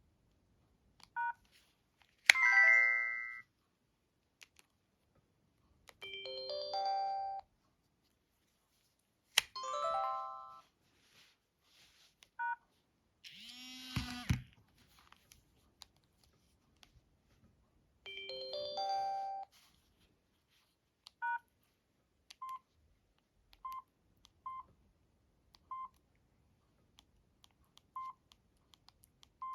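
Samsung SGH-D500 mobile phone system tones from its loudspeaker: a two-note beep, several short chime phrases of about a second each (some stepping down in pitch, some stepping up), and a sweeping electronic sound that drops away about halfway. Near the end come single key beeps about every second.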